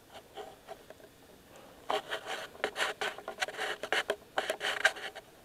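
Handling noise: clothing and hands rubbing and scraping against the camera's microphone. It is faint for about the first two seconds, then comes as irregular scratchy rubs.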